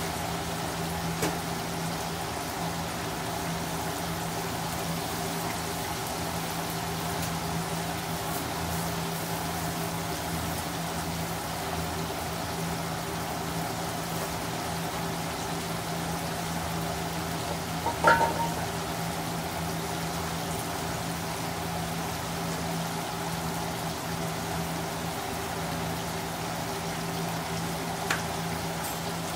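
Whole fish deep-frying in a wok of hot oil: a steady bubbling sizzle over a steady low hum. A sharp metallic clink rings out about 18 seconds in, with small clicks near the start and near the end.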